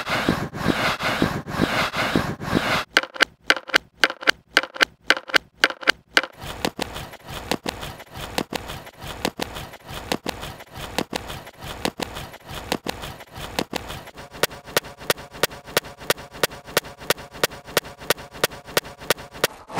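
Hip-hop beat of fast, evenly spaced sharp hits whose pattern changes abruptly about 3, 6 and 14 seconds in, with held tones joining in the last few seconds.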